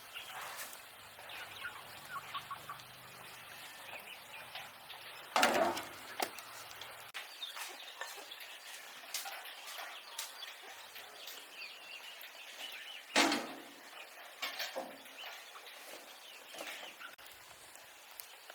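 Birds chirping and fowl calling, many short scattered calls, with two louder brief sounds about five and thirteen seconds in.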